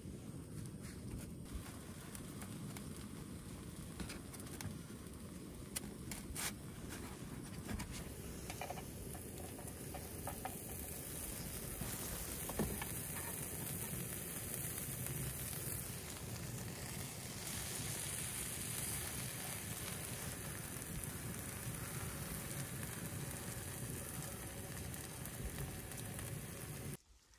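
Tortilla-wrapped burritos sizzling in a nonstick frying pan on a canister camp stove, a steady frying hiss that grows stronger as the pan heats. A few clicks of handling come near the start.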